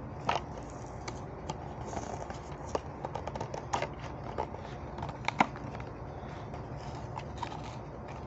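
A toy's plastic blister pack and cardboard backing card being handled and pried open by hand: scattered crinkles, clicks and scrapes, the sharpest about five seconds in.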